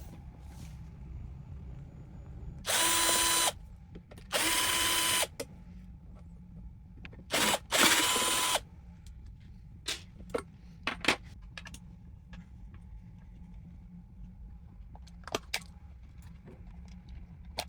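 Electric drill-driver running in four short bursts, each under a second long, at a steady speed, followed by scattered light clicks and knocks.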